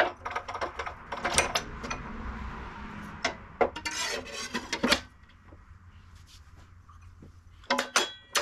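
Steel clinks and scraping as a 14-inch, 66-tooth steel-cutting blade and its arbor flange are handled and slid onto a chop saw's arbor. The clinks come thick and fast at first, ease off for a couple of seconds, then end in a few sharp clanks as the flange and nut go on.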